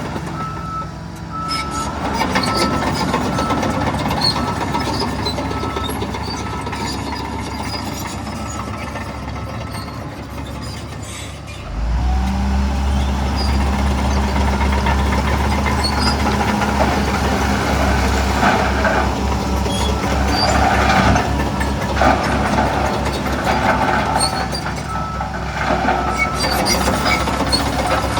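Heavy diesel earthmoving machinery running. About twelve seconds in, an engine comes up suddenly louder and deeper, then runs on with a pulsing beat.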